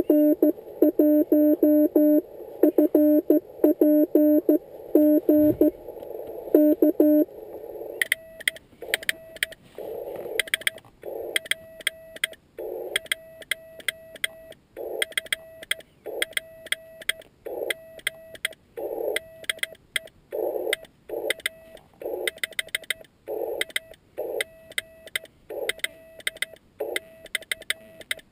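Morse code (CW) tones from a Yaesu FT-817ND transceiver. For about the first seven seconds a fast, lower-pitched keyed signal plays. Then a higher, slower keyed tone follows, with a sharp click at each key stroke.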